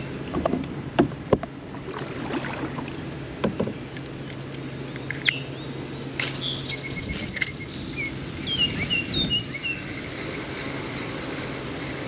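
Sharp clicks and knocks of a spinning rod and reel being handled in a plastic kayak, loudest twice about a second in. In the second half, birds chirp a run of short high notes.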